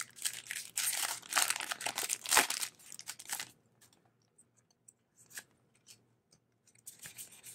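Pokémon TCG Breakthrough booster pack's foil wrapper being torn open and crinkled: a run of crackling rips for about the first three and a half seconds, then near quiet with a few faint ticks and a little rustling near the end.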